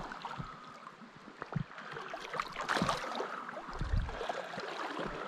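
Water of a small shallow stream sloshing and gurgling around someone wading in it, with a few small splashes and a low thump about four seconds in.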